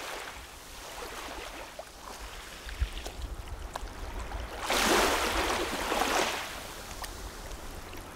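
Small waves washing onto a sandy beach, one wash swelling louder about five seconds in, over a steady low rumble.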